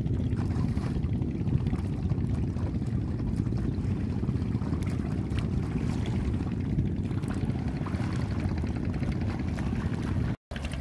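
Water sloshing and trickling as a plastic crate of fish is dipped and rinsed in shallow sea water, over a steady low rumble. The sound cuts out for a moment near the end.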